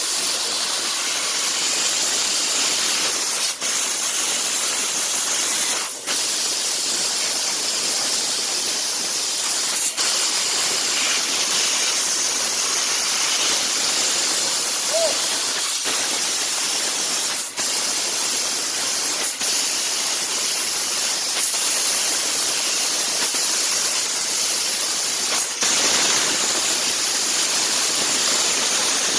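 Loud, steady hiss of a CNC fiber laser cutter at work, the assist gas rushing from the cutting head nozzle, with a few brief breaks as the cut stops and restarts.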